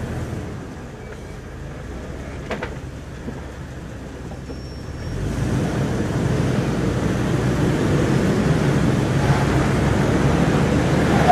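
Off-road vehicle engine running under load while climbing a steep slickrock ledge, growing louder about halfway through as it works harder up the slope.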